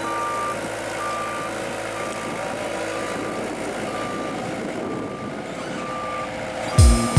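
Reversing alarm of an HD 14 tandem vibrating roller, beeping about once a second at one steady pitch, over the roller's engine running. Music comes in near the end.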